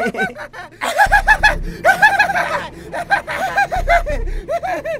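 A group of boys laughing and giggling in quick repeated bursts of high-pitched ha-ha-ha, several bouts one after another.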